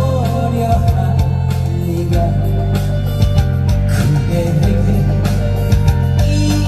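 Backing music with a steady bass line, guitar and a drum beat.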